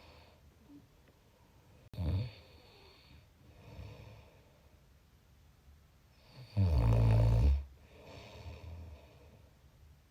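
Snoring: a short snore about two seconds in, then a longer, louder snore lasting about a second past the middle, with softer breaths in between.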